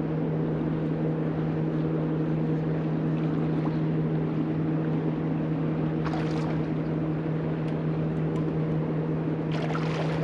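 Steady hum of a bass boat's electric trolling motor, with brief water splashes about six seconds in and again near the end as a bass is hooked and fought at the boat.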